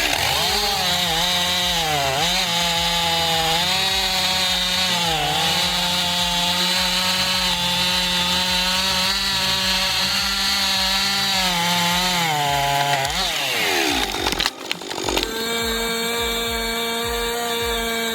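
Chainsaw running hard through wood, its engine pitch dipping several times under load, then falling away as it is throttled down about thirteen seconds in. After an abrupt break, a different machine takes over with a steady, even hum.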